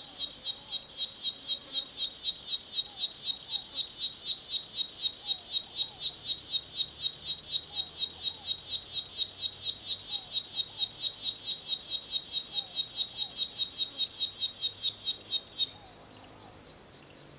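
Cicada singing: a loud, high, evenly pulsed call at about four pulses a second that stops abruptly near the end, leaving a faint thin whine at the same pitch.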